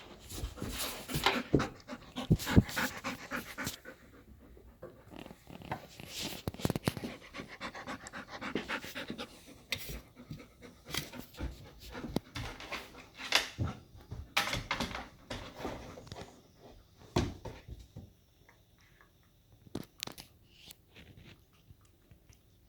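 Golden retriever panting in quick, irregular breaths, loud for most of the time and growing faint and sparse over the last few seconds.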